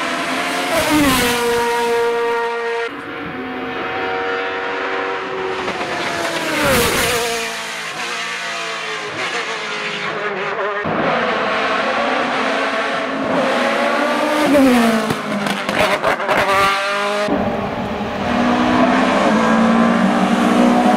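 Hill-climb racing prototype cars' engines at high revs as cars go past. The pitch falls steeply as each one passes, a run of quick downshift blips comes later on, and a steadier engine note builds near the end as the next car approaches.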